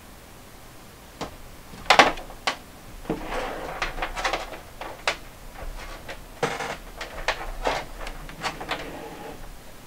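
Handling noises: a series of sharp knocks and clicks, the loudest about two seconds in, with rustling and clatter between them as objects are moved and set down.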